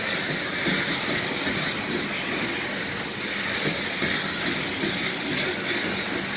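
Loaded coal hopper cars of a freight train rolling past: steady noise of steel wheels running on the rails.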